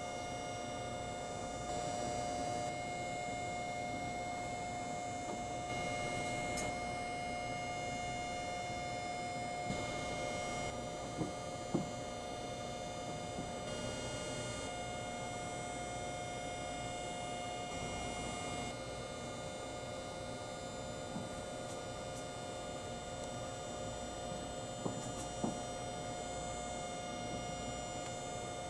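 Steady electrical hum with several high, even whine tones layered over it, from the onboard equipment of parked electric trains idling in a depot siding. A few faint clicks sound about halfway through and again near the end.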